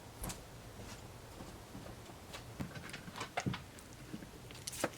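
A few scattered light clicks and knocks of small parts and tools being handled, the sharpest near the end.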